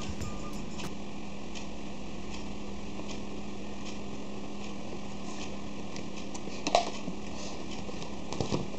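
Room tone with a steady low hum and faint scattered handling clicks and rustles, with one brief louder handling noise about two-thirds of the way through.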